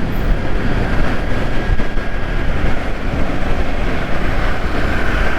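Steady wind and road noise at a helmet-mounted camera on a moving Yamaha R15 V3 motorcycle, with the bike's engine running underneath.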